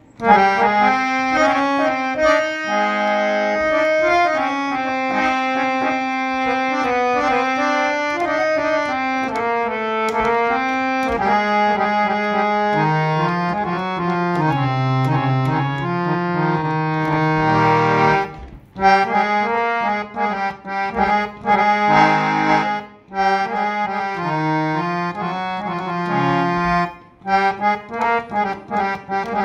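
Old Pakrashi harmonium with two reed banks, bass and male, tuned to A440, being played: a melody over held lower notes. The notes run smoothly without a break for about the first eighteen seconds, then come in shorter, separated phrases with brief gaps.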